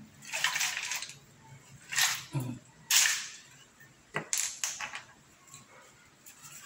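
Conch shells clacking together and a nylon fishing net rustling as hands tug the net off a heap of sea snails, in about four short scraping bursts.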